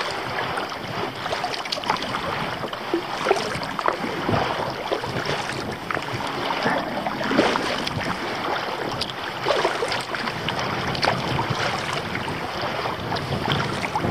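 Kayak being paddled through choppy water: irregular splashes of the paddle and small waves against the hull, over steady wind noise on the microphone.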